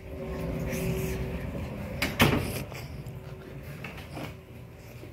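A door banging shut about two seconds in, with a fainter knock about four seconds in, amid rustling from a phone camera being carried.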